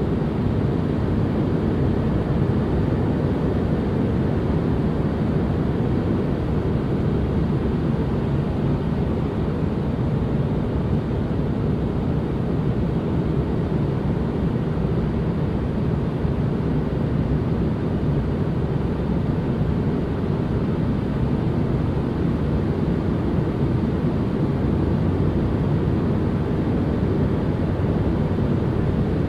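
Steady, unbroken white-noise-style ambience, weighted toward the low end: a deep, even rush with little hiss.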